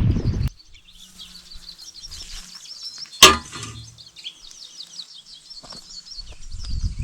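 Birds chirping in quick, high, repeated notes, with one sharp, loud click about three seconds in. A low rumbling noise stops about half a second in and builds again near the end.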